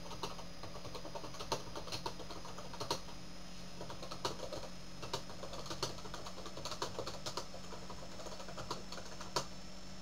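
Computer keyboard being typed on: an uneven run of key clicks that stops just before the end, over a steady low electrical hum.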